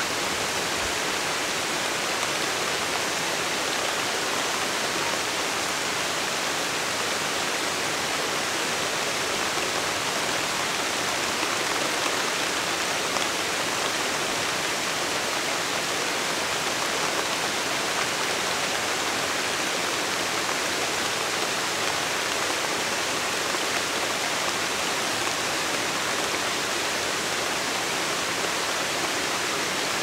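Steady rain falling onto a shallow mountain stream: an even hiss of drops pattering on the water over the stream's flow.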